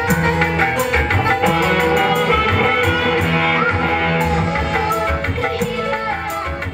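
Small live band with keyboard, guitars, flute and tambourine over a steady percussion beat, with a young girl singing into a microphone, all played through a PA.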